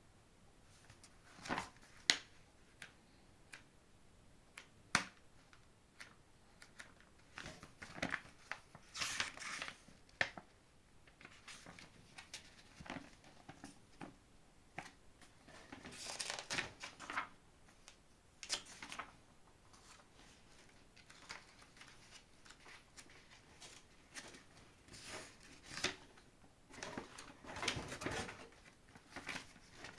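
Packaging being handled during an unboxing: scattered sharp clicks and knocks with short bursts of rustling and crinkling, likely cardboard and plastic wrap.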